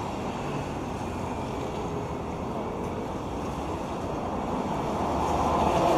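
Steady rushing ambience of a rainy city street, rain and traffic hiss on wet pavement, swelling louder near the end.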